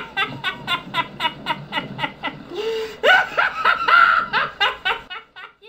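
A person laughing hard in quick repeated bursts, about four or five a second, with a drawn-in breath about two and a half seconds in before the laughter resumes loudly and then trails off near the end.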